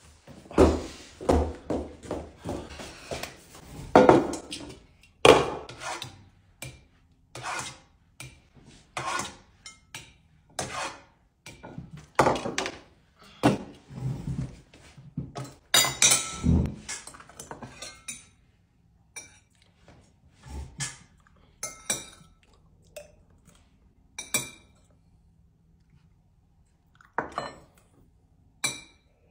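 Tableware knocking and clinking: spoons, bowls and pot against one another in a quick, dense run of knocks that thins out to a few sharp clinks in the last ten seconds.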